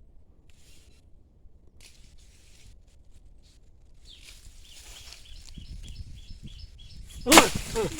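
Outdoor ambience with a rapid run of high chirps from about halfway in, then a sudden loud cry near the end.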